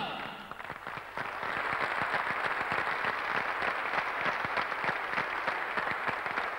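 Audience applauding at the end of a song, many hands clapping. The applause grows louder about a second in and then holds steady.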